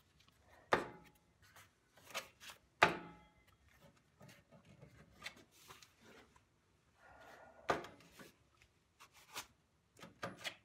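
A steel rounding-hammer head handled in leather work gloves and set down on the idle belt of a belt sander: a few sharp knocks and clinks, the loudest about a second in and about three seconds in, with quiet glove rubbing between.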